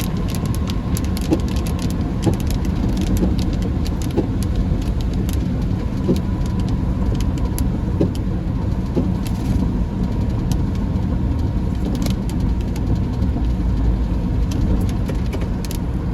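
Car driving in heavy rain: a steady low rumble of engine and tyres on the wet road, with scattered sharp ticks of raindrops striking the car.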